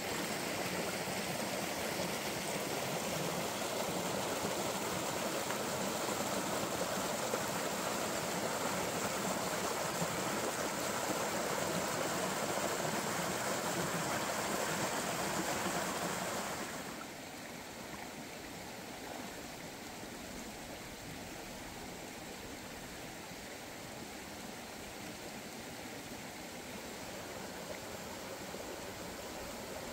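Stream water rushing over a small rocky cascade, a steady noise that drops suddenly about 17 seconds in to a quieter, gentler flow.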